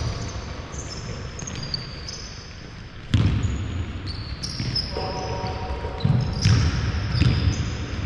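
Basketball game on a hardwood court: the ball bouncing with dull thuds, a sharp one about three seconds in and a cluster near the end, and basketball shoes squeaking on the floor again and again throughout, heard across a large hall.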